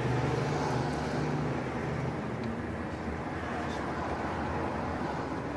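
Steady low hum of a running motor over a wide background hiss; the hum weakens about two seconds in.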